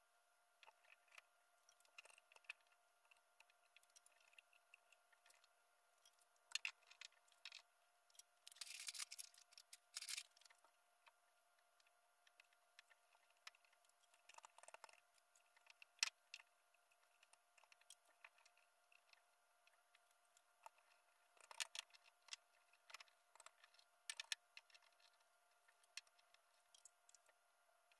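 Near silence, broken by faint scattered rustles and light clicks of a cloth headliner being handled and tucked into a car body. There are a few louder rustles about nine and ten seconds in and a sharp click around sixteen seconds, over a faint steady hum.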